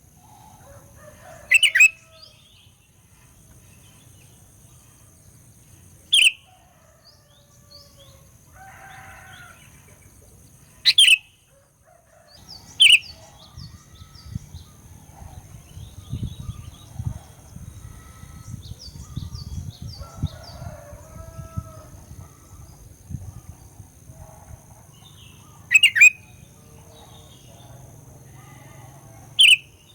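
Sooty-headed bulbul (kutilang) lure calls: about six loud, short, sharp calls that drop quickly in pitch, with softer chirping between them. A low rumble and a steady thin high tone run under the second half.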